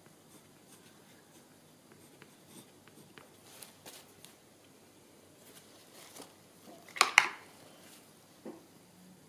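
Painting gear being handled: a few faint light clicks and taps, then a sharp double clack about seven seconds in and a smaller knock soon after.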